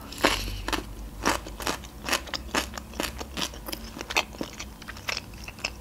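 Close-miked crunchy chewing of raw cucumber stick: a string of crisp, irregular crunches about two or three times a second.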